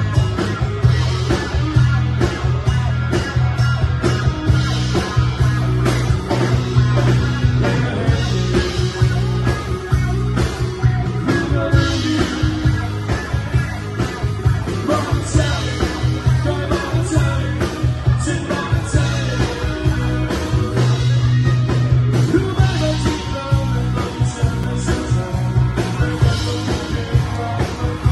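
Live rock band playing: electric guitars over a drum kit with a heavy, steady low end and a singer's voice on the microphone.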